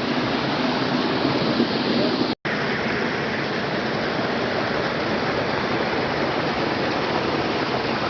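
Rushing water of a rocky forest stream, a steady hiss. It cuts out for an instant about two and a half seconds in.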